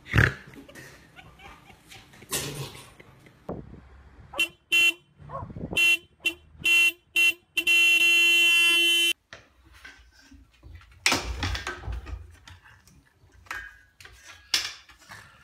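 A car horn honked by a dog sitting in the driver's seat: a string of short toots, then one long steady honk lasting about a second and a half. A brief thump comes at the start, and scattered knocks come after the horn.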